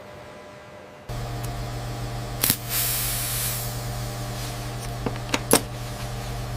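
A steady low electric hum switches on abruptly about a second in, with two sharp clicks and a brief hiss partway through.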